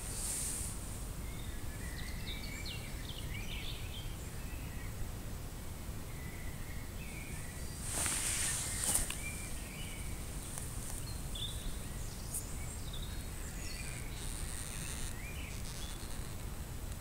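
Outdoor background ambience: a steady low rumble with scattered faint short chirps, and a brief louder rustling hiss about eight seconds in.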